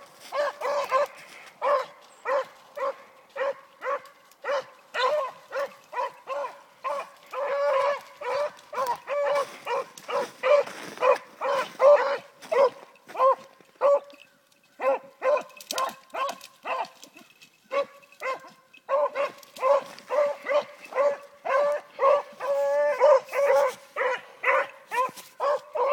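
Hunting hounds baying on a scent trail: a fast, steady run of short, same-pitched barks, about two a second, broken by two short pauses around the middle.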